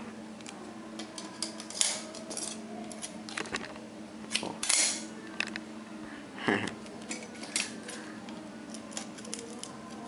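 Scattered light clicks and taps of hands handling a plastic straw and a pair of scissors, getting ready to cut the straw in half, over a low steady hum.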